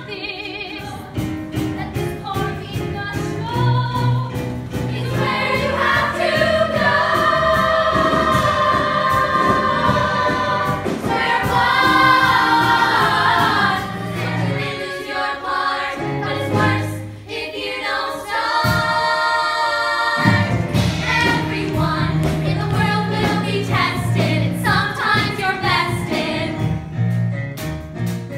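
Young cast singing a stage-musical number together in chorus over instrumental accompaniment.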